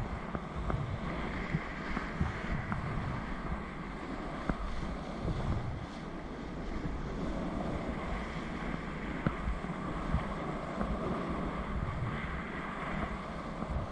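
Steady rush of a fast whitewater river rapid, with wind noise on the microphone and a few light knocks.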